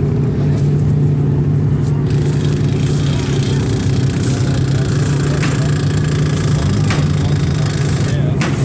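A demolition derby car's engine idling steadily, loud and close, with a few brief knocks over it.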